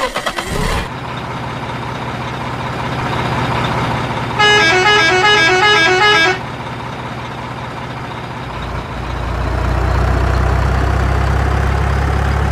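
Truck engine sound running low and steady after a brief rattle of clicks at the start. A multi-tone musical horn plays a quick up-and-down tune for about two seconds near the middle. After about eight seconds the engine gets louder and deeper, as if pulling away.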